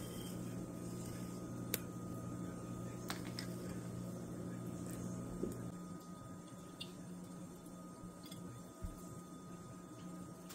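Quiet eating at a table: a few light, sharp clicks of a metal fork against a plate over a steady low room hum. One of the hum's tones drops out about halfway through.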